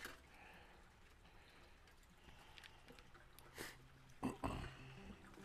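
Faint crinkling of aluminium foil with a few soft knocks about three and a half to four and a half seconds in, as a grilled chicken breast is lifted out of the foil and set on a paper plate.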